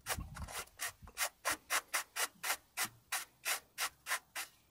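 Socket and extension turning the plastic oil filter housing cap back onto its threads, a short regular stroke about four times a second.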